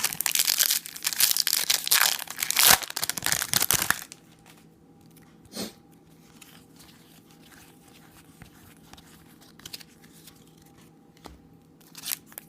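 Foil trading-card pack wrapper being torn open and crinkled for about four seconds. Then it goes quiet apart from a faint steady hum.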